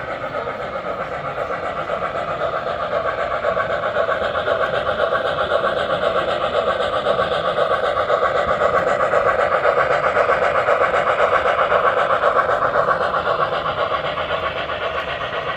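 Model train running along its track with a rapid, even clatter of wheels on rails, growing louder until about twelve seconds in and then fading a little as it passes.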